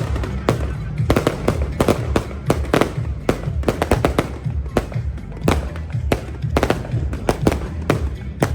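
Fireworks bursting in rapid, irregular succession, many sharp bangs a second, over music with a steady, heavy bass.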